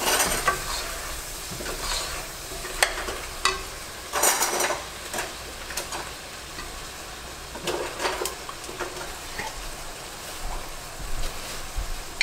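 Onion and lemongrass sizzling as they sauté in butter and oil in a pot, with a spoon scraping and knocking against the pot at irregular moments.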